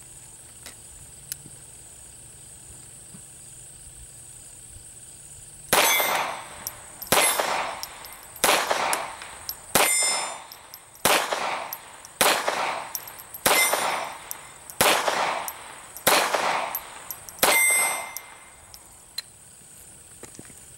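Sig Sauer 1911-22 semi-automatic pistol in .22 LR firing ten single shots at an even pace, about one every second and a quarter, starting about six seconds in. Each shot is a sharp crack with a short ringing tail.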